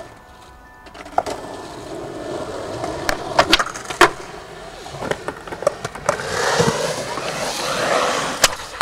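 Skateboard wheels rolling, with several sharp clacks of the board, the loudest a cluster about three and a half to four seconds in. The rolling grows louder over the last few seconds.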